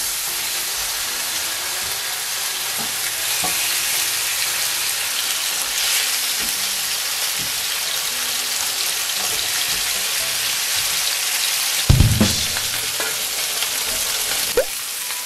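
Beef steaks searing in hot oil in a frying pan and a grill pan, a steady loud sizzle. About twelve seconds in there is a heavy clunk, and a smaller sharp knock comes near the end.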